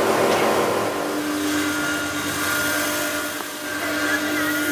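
Electric grinding mill (pulveriser) running, milling material into powder, with a steady machine hum.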